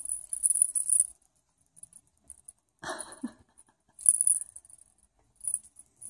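Pet budgerigar on a branch play stand: short bursts of thin, very high, rapid ticking, with a brief rustling knock about three seconds in.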